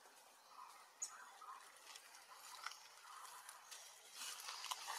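Faint rustling and crackling of dry leaf litter as macaques move over it, with a few soft clicks early on and the rustling growing louder near the end.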